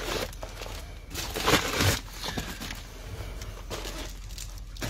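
Plastic packaging bags rustling and crinkling as they are handled, in irregular bursts that are loudest from about one to two seconds in.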